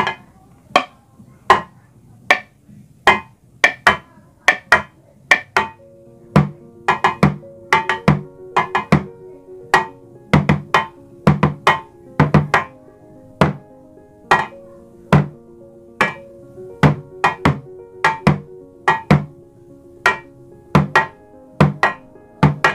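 Bamboo sticks beating a rhythmic pattern on an improvised drum kit: deep thuds from a plastic drinking-water jug used as the main drum, mixed with sharp clacks on a stainless cooking lid lying on top of it. The strikes come several a second in short groups, and from about six seconds in a steady ringing tone hangs between them.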